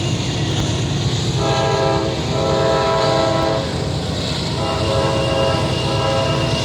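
Diesel freight locomotive's multi-note air horn sounding in long blasts over the steady rumble of the locomotives and train. The horn starts about a second and a half in, breaks briefly, stops past the middle and sounds again a second later.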